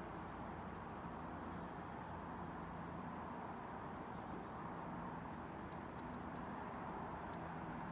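Steady outdoor river ambience: an even background hiss, with a few faint high chirps and a handful of small sharp clicks about six and seven seconds in.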